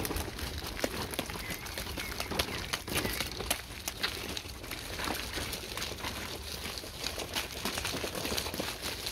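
A small child's footsteps in rubber boots on a wet gravel path, stamping through shallow puddles: an irregular run of crunches and small splashes.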